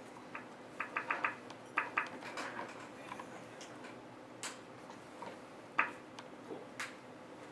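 Scattered light clicks and taps from equipment being handled while the audio is hooked up: a quick run of four about a second in, a few more just after, then three single sharper clicks spaced about a second apart, over a faint room hum.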